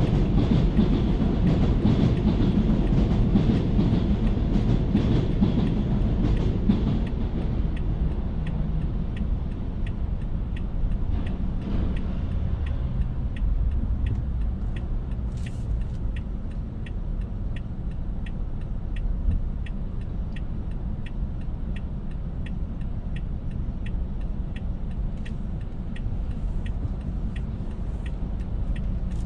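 Elevated subway train running and clattering on the steel el structure overhead, heard from inside a car waiting beneath it; the clatter fades after about seven seconds. After that the car's steady hum remains, with turn-signal ticks about one and a half times a second.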